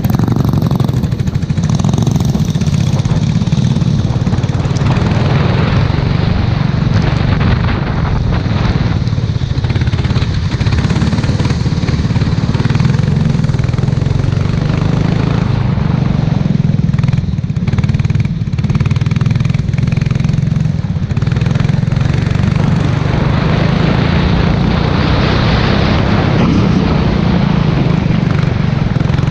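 Formula 4 race car engine running hard on a wet track, with a constant hiss of water spray over it. Somewhat past the middle, the engine note eases for several seconds before picking up again.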